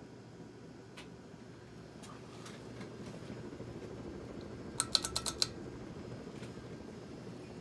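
Hunter Low Profile II 52-inch ceiling fan running with a steady low whoosh that swells slightly midway. About five seconds in comes a quick run of about six sharp clicks.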